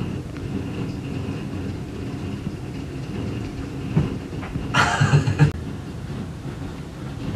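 A steady low rumble, then about five seconds in a short burst of thuds and rustling as the cat leaps down from its wall shelf and lands on the floor.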